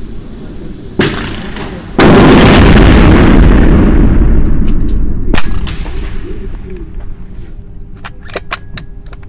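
A shot from a Jaeger PCP air rifle about a second in. About a second later comes a loud rushing rumble that lasts about three seconds and fades, then a sharp crack and a few short clicks near the end.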